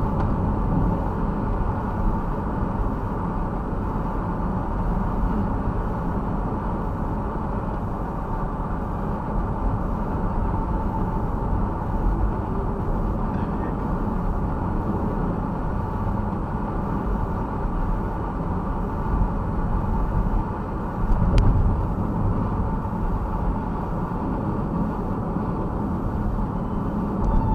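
Steady low road and engine rumble of a smart fortwo on the move, heard from inside the cabin, with a single sharp click and a brief louder bump about 21 seconds in.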